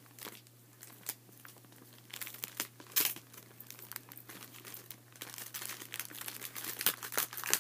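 A packaged grab bag crinkling and rustling as it is handled and opened, with irregular sharp crackles, the loudest about three seconds in, over a steady low hum.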